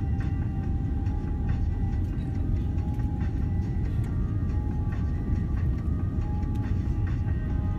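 Jet airliner cabin noise on final approach: a steady low rumble of engines and airflow, with a few faint steady whining tones above it.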